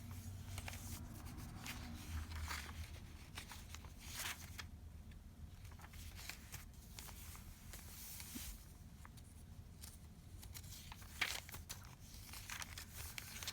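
Soft paper rustling with scattered light clicks and taps as the pages, pockets and tags of a handmade paper junk journal are handled and turned.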